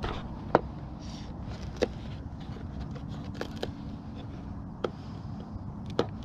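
Scattered sharp clicks and taps, about six of them, as hands handle a foam radio-controlled model airplane, over a steady low rumble of wind on the microphone.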